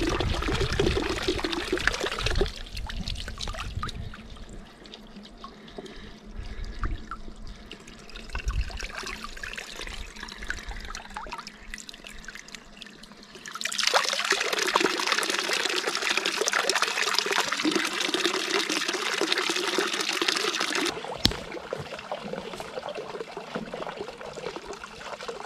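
Water running and trickling from a forest spring fountain, a steady splashing that turns much louder about fourteen seconds in and drops back about seven seconds later.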